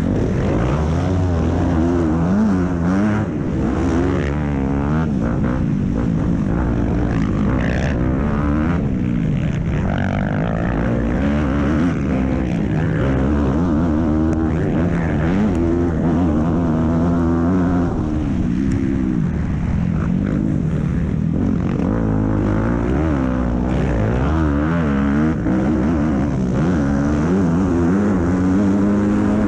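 Motocross bike engine running under race load, its pitch climbing and dropping again every second or two as the rider accelerates, shifts and backs off through the track's corners and straights, heard close up from the rider's own camera with wind rush.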